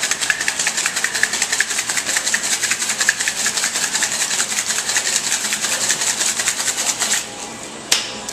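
Ice rattling hard inside a sealed metal cocktail shaker, shaken in a fast, even rhythm. It stops about seven seconds in, and a single sharp knock follows near the end.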